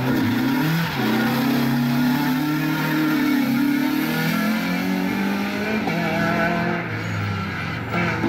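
Renault Clio II race car's four-cylinder engine revving hard under racing acceleration, its pitch climbing and dropping back at each gear change. Near the end it falls to a lower, steadier note.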